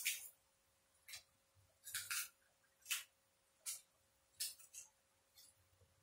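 Short scraping strokes, roughly one a second at uneven intervals, as the tough skin of green bananas is peeled off by hand, with a faint steady hum under them.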